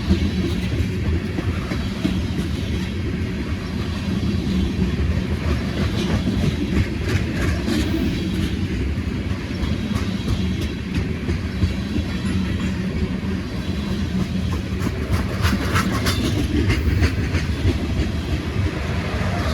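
Freight train cars rolling past, a steady low rumble with wheels clicking over the rail joints, and a cluster of sharper clicks and rattles near the end.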